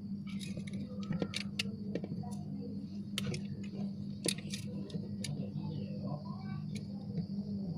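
A steady low hum with irregular light clicks and taps over it.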